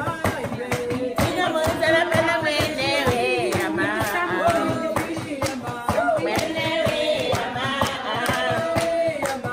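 A group of women singing a song together, with hands clapping along to the beat.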